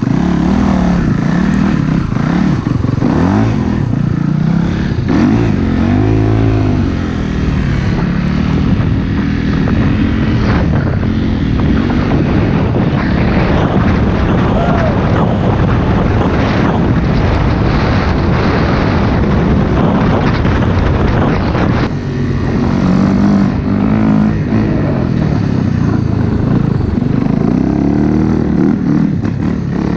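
Four-stroke 450cc dirt bike engine being ridden, its pitch rising and falling as the throttle is opened and closed, over a steady rushing noise.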